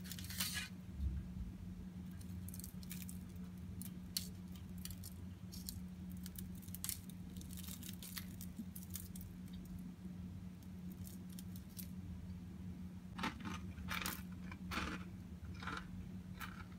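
Faint rustling and light crackles of baking parchment and crisp-baked garlic toast being handled on a baking tray, busier near the end, over a steady low hum.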